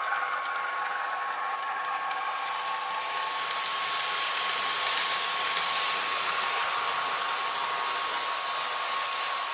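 Model train running out along the track, its motor and wheels whirring steadily and loudest about halfway through, over a steady high tone.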